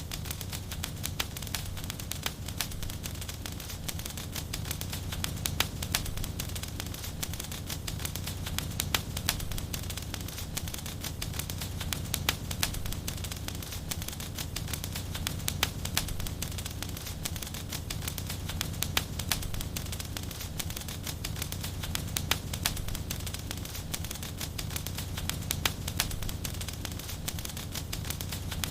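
Fire in a fireplace crackling steadily, with frequent sharp, irregular pops over a low, steady rumble.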